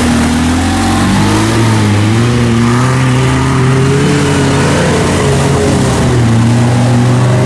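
Off-road vehicle's engine running under load, its pitch wavering slightly up and down.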